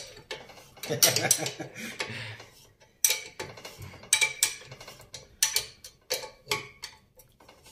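Irregular sharp metal clicks and clinks, a few a second, from a wrench working the threaded nut of a screw-type bushing extractor held in locking pliers, once the worn swingarm bushing has been pulled out.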